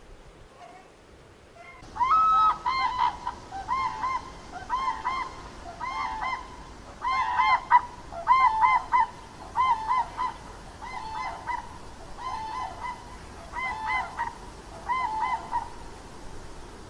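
Grey crowned cranes calling: a long series of short, repeated two-note calls, starting about two seconds in and fading a little toward the end.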